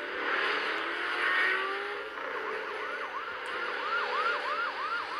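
Police siren in a fast yelp: quick rising-and-falling wails, about three a second, starting about two seconds in over a rushing vehicle noise.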